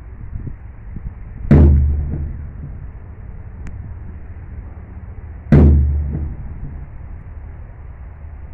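Two heavy gun booms about four seconds apart, each dying away in a rumble over about a second, over a steady low rumble.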